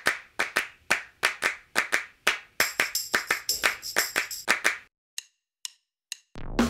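Rhythmic hand claps, about four a second, forming the beat of an intro jingle, with a bright jingling layer joining about halfway. The claps stop near the end, a few soft ticks follow, and a falling whoosh leads into drum-kit music.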